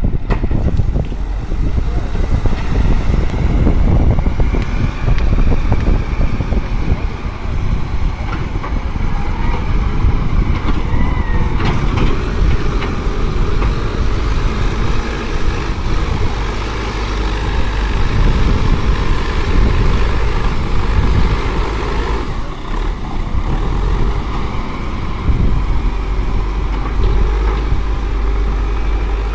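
Caterpillar 936F wheel loader's diesel engine running hard while the machine drives and works its bucket, its note swelling and easing with the throttle.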